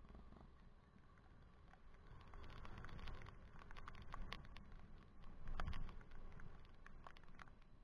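Riding noise from a camera mounted on a moving ride: low wind and road rumble that swells and fades, with scattered light rattling clicks from bumps in the road.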